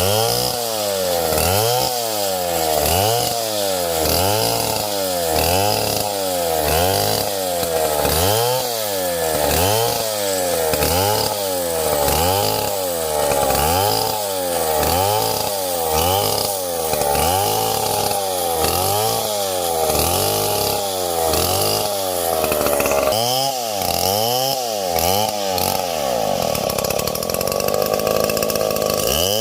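Gasoline chainsaw cutting wood, its engine pitch rising and falling about once a second in a repeated rhythm, then holding steadier for a couple of seconds near the end.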